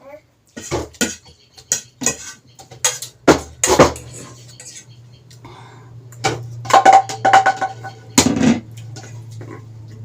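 Cutlery and dishes clattering: a string of sharp clinks and knocks, some ringing briefly, with a low steady hum underneath.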